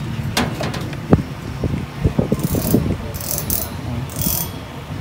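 Clicks and light rattling of multimeter test leads and an alligator-clip lead being handled and clipped onto the wiring, with a quick run of ticks about two seconds in and a few short scratchy hissing bursts in the second half.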